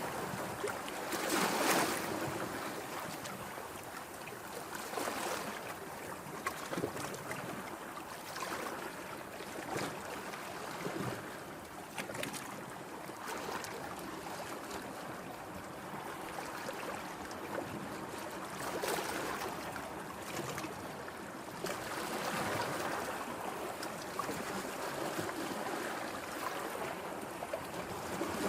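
Ocean surf: a steady rush of waves that swells and falls back every few seconds.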